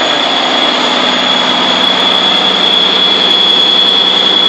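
M35A2 deuce-and-a-half truck's multifuel diesel engine running steadily, its exhaust now muffled, with a steady high whine over it. The exhaust still has a hole in it, so it is still a little loud.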